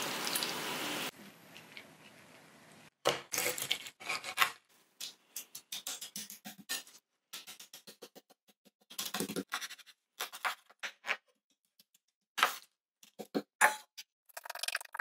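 Two chef's knives chopping raw squid on a wooden cutting board: irregular runs of quick knife strikes against the board as the squid is minced by hand. About a second of steady hiss comes at the start.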